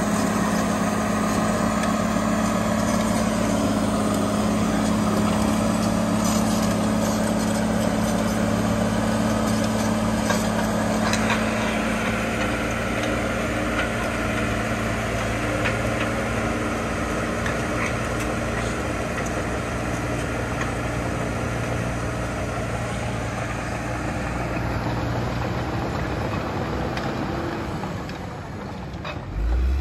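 Crawler dozer's Cummins 5.9 inline-six diesel running steadily as the machine tracks over loose dirt, with scattered faint clanks. Near the end the level dips, then the engine revs up sharply.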